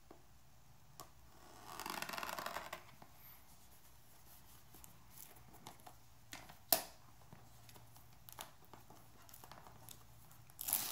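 Thin plastic shrink-wrap on a phone box being slit with a small card knife: a rasping cut lasting about a second, two seconds in, then a single sharp click near the middle. Near the end the film is torn open and crinkles loudly.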